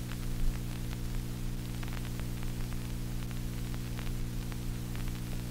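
Steady electrical hum with a stack of overtones, over tape hiss and faint scattered clicks, from a TEAC A-2340SX reel-to-reel deck playing a tape before the music starts. The uploader puts the hum down to a busted track on the tape deck.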